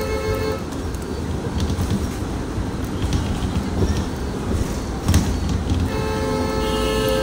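TransJakarta bus horn sounding long held blasts as a warning to runners in the busway. One blast ends about half a second in, then engine and road rumble with a single knock about five seconds in, and the horn is held again from about six seconds on.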